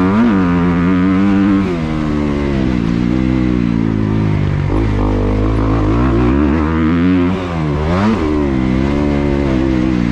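Single-cylinder dirt bike engine revving up and falling back repeatedly as it is ridden around a motocross track, heard close up from a helmet camera. The throttle is briefly closed twice, about one and a half seconds in and again a little past seven seconds, before the engine picks up again.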